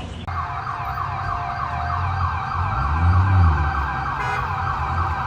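Emergency vehicle siren sounding a fast yelp, rising and falling several times a second, over a low rumble.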